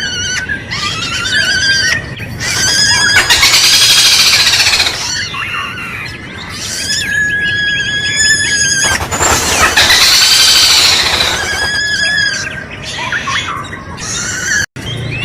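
Kadalan kembang, a malkoha, giving a run of loud, shrill squealing calls, each one to two seconds long with short gaps between. Some calls waver in pitch and others rise and fall in an arch.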